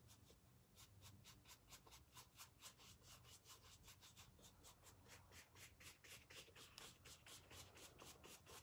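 Faint, quick strokes of a paintbrush brushing paint onto damp canvas shoe fabric, about five strokes a second.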